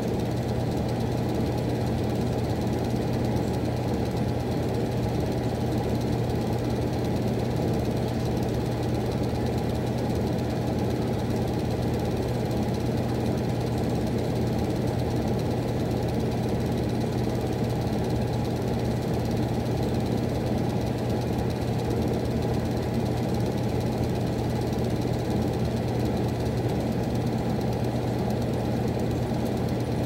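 Miller E2 furnace running: a steady low hum with a dense mechanical drone beneath it, unchanging throughout.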